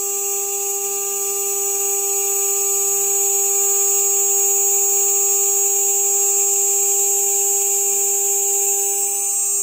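CNC router spindle running at about 12,000 RPM with a 3mm carbide endmill cutting into polycarbonate sheet: a steady pitched whine over a high hiss of cutting.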